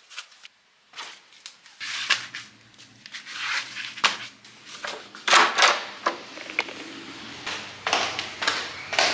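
Footsteps in rubber slide sandals scuffing and slapping on a tiled floor and stone stairs, with knocks and rustles of handling between them. A low steady hum comes in about two seconds in.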